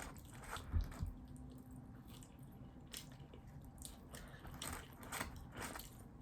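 Faint chewing and wet, sticky mouth sounds of people eating, with scattered small clicks.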